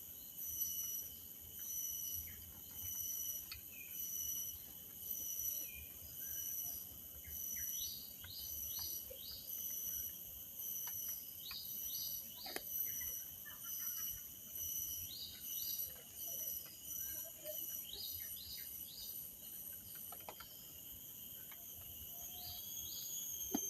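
Forest ambience: insects calling steadily at several high pitches, one of them pulsing evenly about once every second, with a bird repeating a short call of three or four quick rising notes every few seconds.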